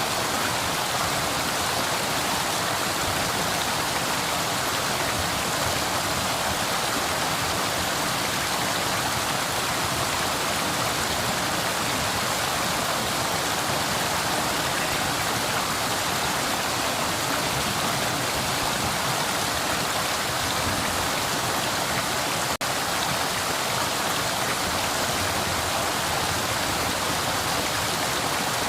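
Flowing river water rushing steadily, an even hiss-like wash of running water with no change in strength.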